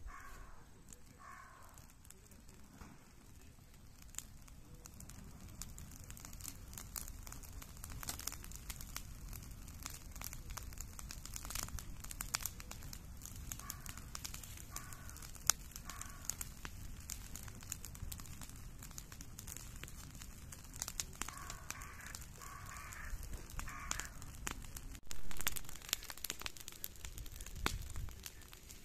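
A heap of weeds and dry grass, with wood and kerosene added, burning: irregular crackling and popping over a low rush of flame, growing denser a few seconds in. A brief louder rush comes near the end.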